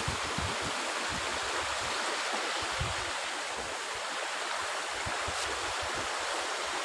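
Small shallow stream rushing steadily over rocks.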